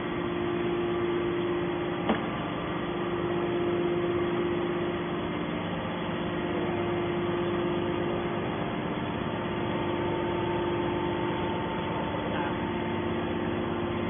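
Hydraulic scrap-metal baler's pump and electric motor running with a steady hum, the press idle with no load; a single sharp click about two seconds in.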